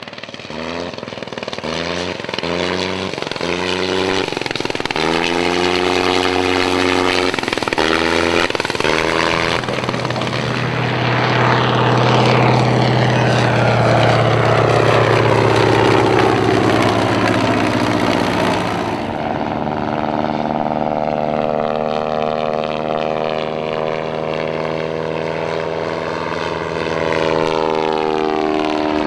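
Propeller engines of World War One biplanes and triplanes in flight. For the first ten seconds an engine note cuts in and out about every three-quarters of a second, then steady engine drones fall in pitch as aircraft fly past. The sound changes abruptly to a different engine about two-thirds through.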